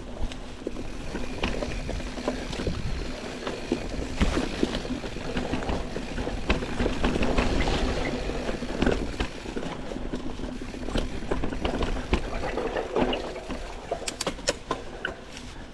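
Mountain bike descending a rough dirt singletrack: a continuous rumble of tyres over dirt, roots and leaf litter, with frequent knocks and rattles from the bike over bumps.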